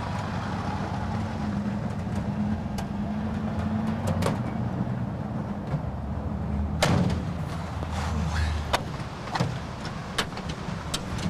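Street traffic with a vehicle engine running that stops about nine seconds in, and several sharp door clunks in the second half as a van's rear doors are opened.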